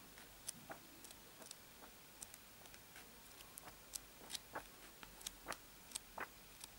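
Glossy pages of a thick comic-book omnibus being turned by hand one after another. Each page gives a faint, short paper flick or tap, coming irregularly a few times a second.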